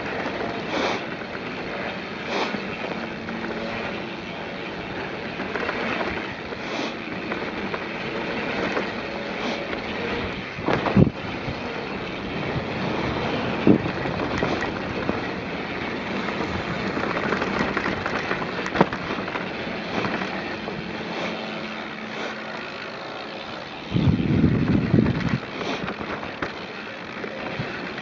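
Mountain bike descending a dirt singletrack at speed: steady tyre noise on dirt and gravel, with the bike rattling and clicking over the bumps and wind noise on the handlebar microphone. There are two sharp knocks from hard hits about eleven and fourteen seconds in, and a loud low rumble for about a second and a half near the end.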